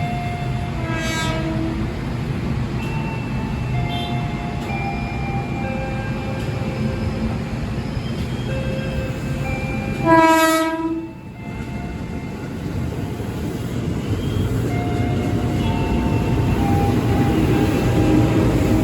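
Train running through a station with a steady rumble, sounding a short horn toot about a second in and a louder horn blast of under a second about ten seconds in; faint high squeals come and go over the rumble.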